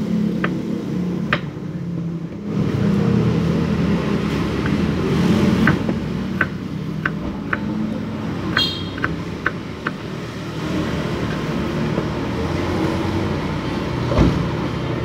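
A motor vehicle engine running close by, a steady low hum, with scattered sharp clicks and a brief high squeak about eight and a half seconds in.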